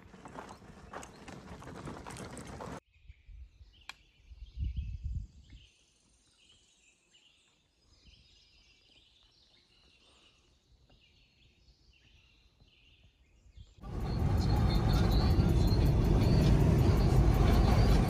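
Songbirds chirping softly in woods, with a short low rumble about four seconds in. After a brief noisy stretch at the start, the birds give way near the end to the steady road and engine noise inside a moving car.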